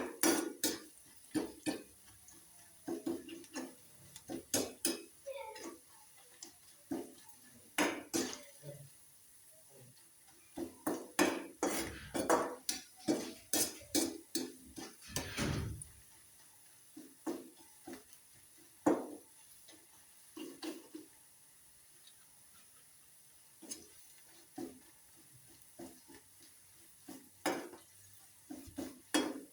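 Kitchen utensils and cookware clattering: irregular knocks and clinks of metal against pots and dishes, with one longer, heavier scrape about halfway through.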